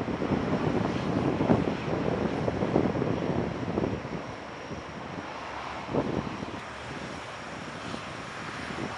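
Four-engine turboprops of C-130 Hercules transports running as the aircraft taxi past in turn. The noise is louder in the first half, then eases off a little.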